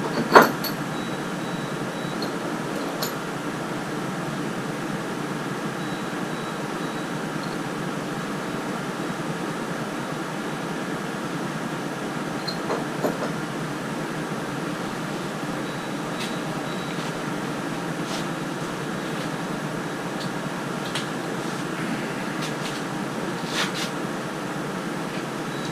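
Steady fan-like hum of a workshop, with a few light clicks and taps of parts being handled. The sharpest click comes about half a second in.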